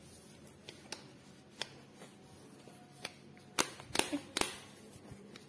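Light clicks and knocks of a plastic tub of Midalac goat's milk powder being handled over a plastic bowl on a table: a few scattered light clicks, then a quick run of louder clicks about three and a half seconds in.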